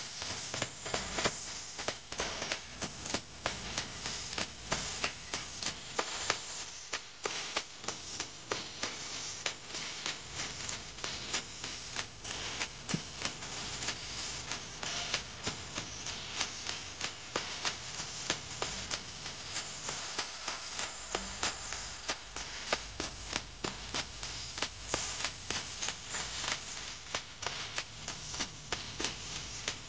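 Irregular light taps and clicks, several a second, over a steady hiss.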